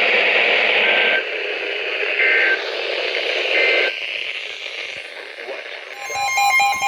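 NOAA Weather Radio receiver hiss and static between broadcasts, with short bursts of raspy digital data tones in the hiss, typical of the SAME header that opens an alert. About six seconds in, a chiming multi-tone alert sound begins.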